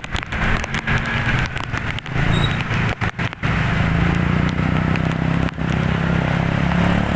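Tour bus engine running, a steady low hum with crackling noise over it; the hum becomes steadier about halfway through after a couple of brief dropouts.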